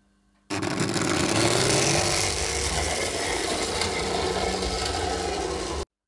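Märklin V200 model diesel locomotive from around 1960 running on metal track: its electric motor and gears start up suddenly with a rising whine as it pulls away, then run with a steady loud rattling hum that cuts off abruptly near the end.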